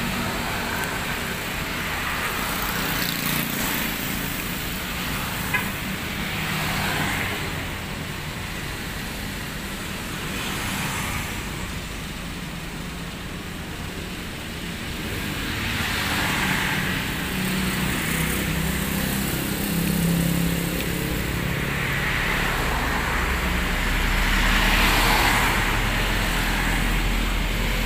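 Street traffic: motor scooters passing one after another, each swelling and fading. A deeper truck engine rumble grows over the last few seconds.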